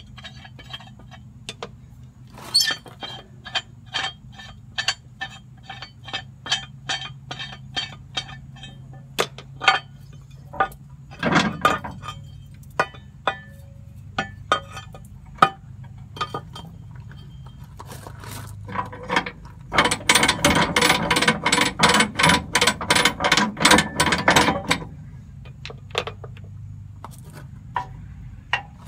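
Metal clicks and clinks from the spare-tire winch of an M35A2 truck as its steel cable and hook are worked at a steel wheel: first a run of evenly spaced clicks, about two a second, then, past the middle, a few seconds of rapid clicking.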